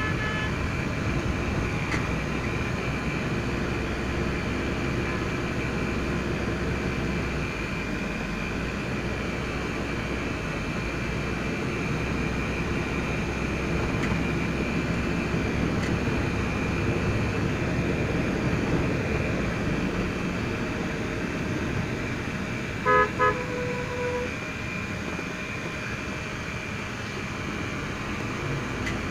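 Steady road and engine noise inside a moving car. A vehicle horn gives two short toots and then a brief longer one, about three quarters of the way through.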